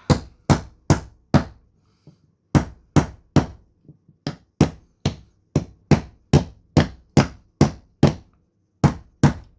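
Knife chopping into a wooden log to split off kindling: about twenty sharp wooden knocks in quick runs, two to three a second, broken by short pauses.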